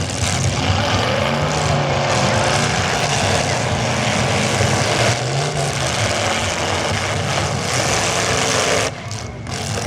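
Demolition derby cars' engines running and revving over a dense, steady din, with the pitch rising and falling. The level dips briefly near the end.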